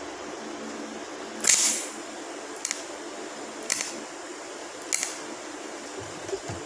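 TIG welding arc with argon shielding gas, fusing a seam in thin metal sheet without filler rod: a steady hum broken by four short hisses about a second apart, the first the longest and loudest.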